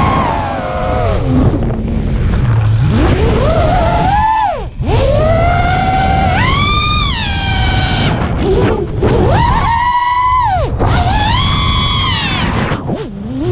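Brushless motors and 5-inch props of a 3D freestyle quadcopter whining, the pitch climbing and falling with throttle and dropping away briefly about five seconds in and again near the end. A low wind rumble runs underneath on the onboard microphone.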